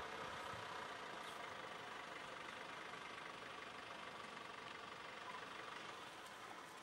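A vehicle engine idling steadily, faint and easing off slightly toward the end.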